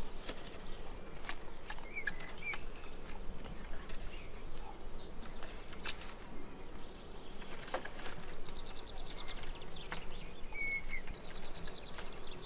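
Forest ambience: a few short bird chirps and, in the second half, fast ticking trills, over a steady hiss with scattered small clicks.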